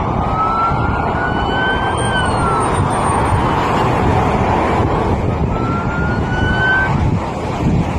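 Police siren wailing: its pitch rises for about two seconds, falls, then rises again near the end, over a steady rush of highway traffic noise.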